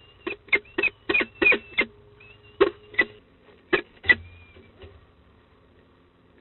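Peregrine falcon's talons tapping and clicking as it steps across the nest-box floor and onto the metal grating ledge: about a dozen sharp, irregular taps, the last one the loudest about four seconds in.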